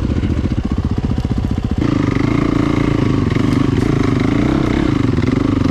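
Yamaha dirt bike engine chugging at low revs for about two seconds, then the throttle opens and it runs louder and higher, the pitch rising and falling with the throttle.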